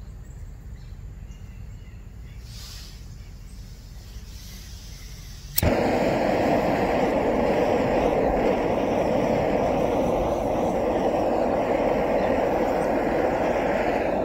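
BULin ultralight canister gas camping stove lighting with a sharp click about five and a half seconds in, then its burners running with a loud, steady hiss of burning gas.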